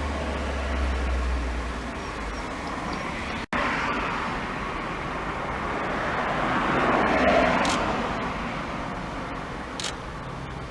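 Road traffic noise: a steady rumble with a vehicle passing, swelling to its loudest about seven seconds in and then fading.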